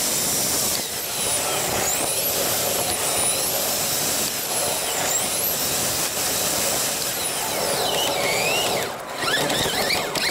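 Running noise of a 1969 MGB on the move, a steady rush of engine, tyre and wind noise, with a thin whine sliding up and down in pitch several times. The rush dips briefly near the end.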